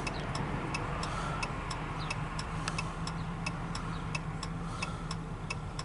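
Car turn-signal indicator clicking steadily, about three clicks a second, over the low, steady hum of the car running, heard inside the cabin.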